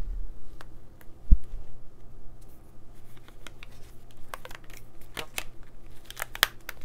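Rubber bands being stretched and snapped around fabric glued and rolled tightly over a flashlight: a run of short snaps and clicks, thickest near the end. A single low thump about a second in is the loudest sound.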